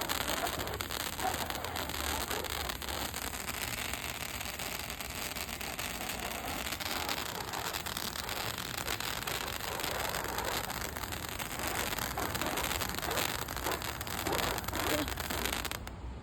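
Handheld firework fountain spraying sparks: a steady crackling hiss that cuts off suddenly near the end as it burns out.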